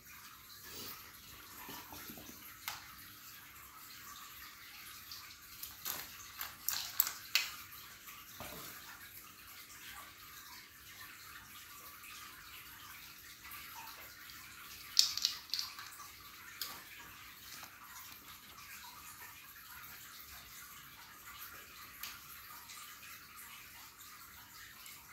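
Light plastic clicks and clatters as kittens knock toy building bricks and small plastic toys about on a tiled floor. The taps come in two short flurries, one a few seconds in and one around the middle, over a steady background hiss.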